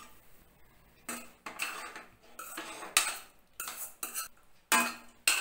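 Steel spatula-spoon scraping and clinking against a stainless steel kadai, in a run of separate strokes, as cooked rice is stirred into curry leaf paste.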